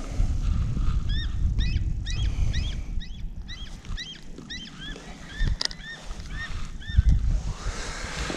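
Flock of geese honking: a quick run of many overlapping calls for about five seconds, then fading out. Underneath is a low rumble, with a couple of sharp knocks near the end.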